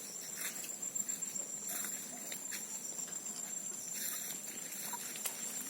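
Insects trilling steadily at one high pitch, with scattered light taps and clicks.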